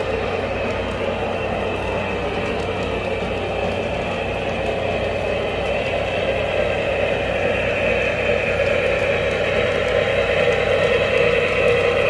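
O-scale three-rail model train, a steam locomotive pulling freight cars, running along the track with a steady mechanical whir and clatter of wheels on the rails. It grows a little louder toward the end.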